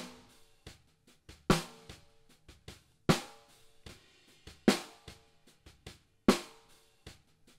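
Sampled acoustic snare drum hits played back in Logic Pro's Drum Replacement preview. One sharp crack with a short ring comes about every second and a half, four in all. The snare sample changes as each next one in the list is auditioned.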